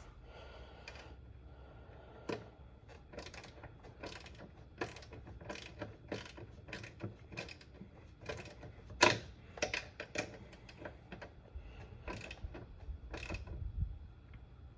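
Hand wrench tightening a nut on a headlight motor's mounting bolt, in short strokes: a run of irregular metallic clicks about one or two a second, one louder click about nine seconds in, until the nut is tight.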